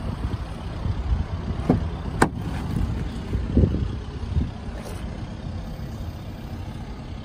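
A car's rear door latch clicks open sharply about two seconds in, with a couple of dull thumps as the door is handled, over a steady low rumble.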